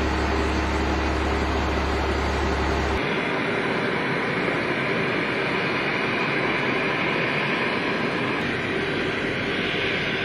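Il-76 military transport aircraft's jet engines running on the apron, a loud steady noise. About three seconds in, a low hum drops out and a higher whining hiss takes over.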